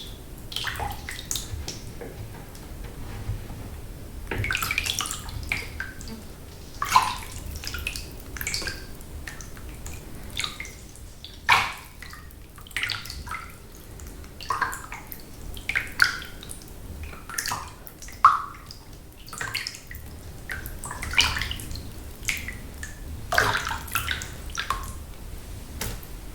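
Water sloshing and splashing in a filled bathtub, stirred by hand or body, with irregular splashes and drips and a few sharper splashes.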